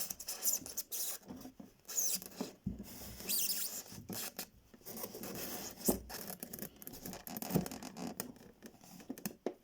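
Irregular scratching and rubbing with scattered light clicks and knocks: dropper wires being pushed down through foam insulation board under model railway track, catching on the board as they go.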